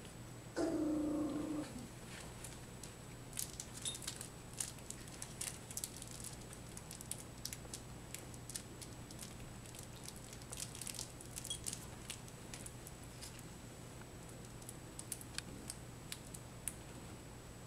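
A 3½-week-old puppy gives one short whining cry about half a second in. Scattered light clicks and scuffles follow as the litter moves about and plays.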